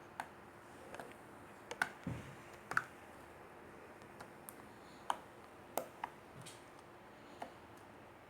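Scattered soft clicks and pops from marshmallow slime being squished and pulled by hand, about eight spaced irregularly, with one dull low thump about two seconds in.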